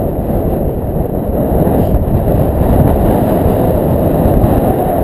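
Wind buffeting the microphone: a loud, steady, rumbling rush with no clear tone.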